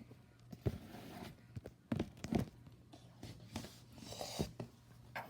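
A few light knocks and handling noises, spread unevenly, over a faint steady hum.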